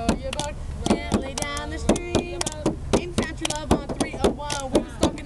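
Girls rapping a homemade song over a quick beat of sharp knocks, several a second.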